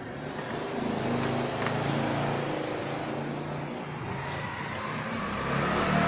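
A motor vehicle's engine running steadily, with a low, slowly wavering drone that grows a little louder near the end.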